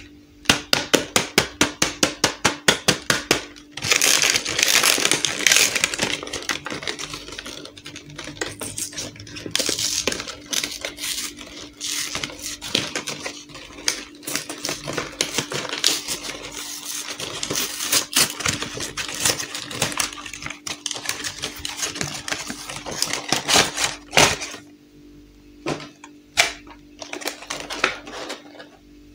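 A cardboard toy box and its stiff clear plastic blister tray being handled and opened by hand. First a quick, even run of sharp clicks, about six a second, then a long stretch of crackling and rustling cardboard and plastic with scattered clicks, thinning out near the end.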